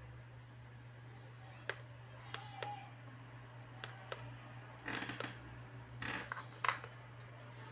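Button clicks on a CXY TC17 cordless tire inflator's control panel, a handful of single sharp clicks, followed by a few short rustling, scraping bursts as the unit is handled, over a low steady hum.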